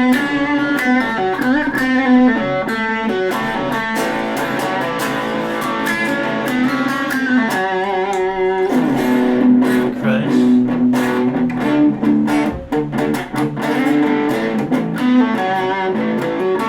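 Gibson Les Paul electric guitar played through a small overdriven amp on its bridge pickup with the volume full up: a hot lead tone, playing a line of changing notes.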